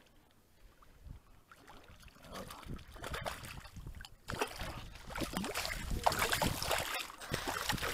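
Water sloshing and splashing in a shallow, rocky river. It is faint for the first couple of seconds and louder from about four seconds in.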